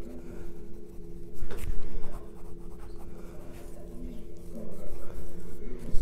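Pencil scratching on paper in runs of quick strokes, building up the texture of a drawn beard, over a steady hum.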